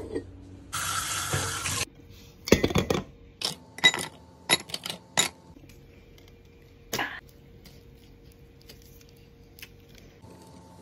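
Ice cubes dropped into a stemmed wine glass: a short rustle, then a run of about eight sharp clinks with a glassy ring, the last one a second or two after the others.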